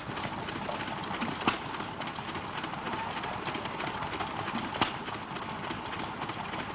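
Two sharp knocks a few seconds apart, from horses' hooves as the animals shift their feet, over a steady background hiss.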